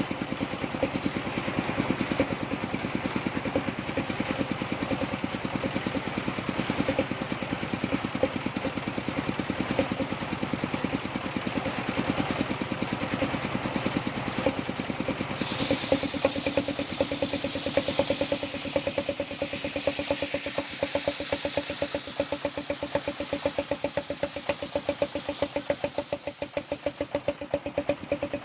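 Sawmill machinery running steadily, with an engine's fast, even pulse throughout. About halfway through, a higher hiss joins in.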